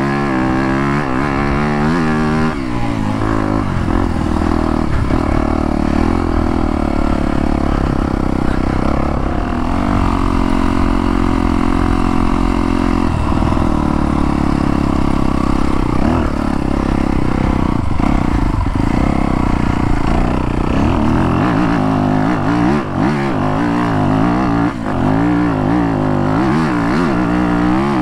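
Yamaha YZ250FX dirt bike's four-stroke single-cylinder engine being ridden, its revs rising and falling with the throttle and holding steady for a few seconds around the middle.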